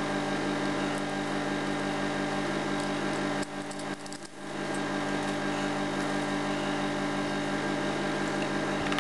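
Steady, even hum made of several fixed tones, dipping briefly about three and a half seconds in.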